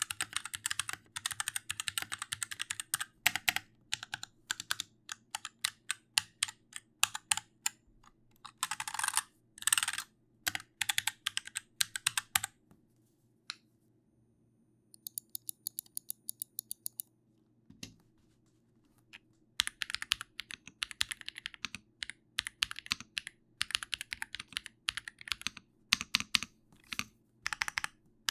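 Typing on a computer keyboard: fast flurries of key clicks, a pause about halfway through with a quick, even run of faint ticks, then typing resumes.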